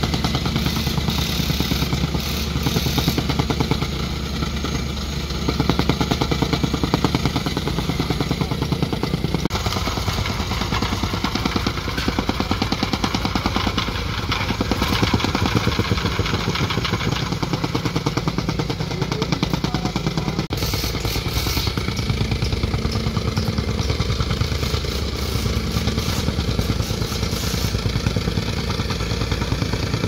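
Two petrol tamping rammers (jumping-jack compactors) running together, their small engines buzzing as the feet pound the soil in rapid steady blows. They are compacting backfill.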